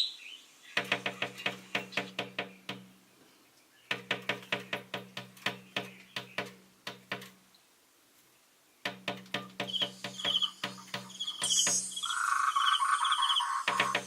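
Collared finchbill tapping its bill against window glass: quick knocks about six a second, in three bouts of two to four seconds with short pauses between. In the last few seconds, short high trilled bird calls repeat, and a steadier mid-pitched sound rises over them for about a second and a half.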